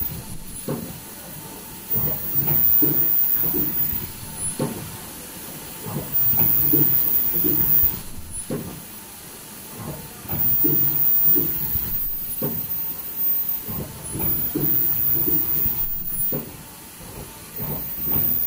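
N95 folding-mask production line running: its machine cycle repeats about every four seconds, with a string of knocks and a very high-pitched sound in each loud stretch.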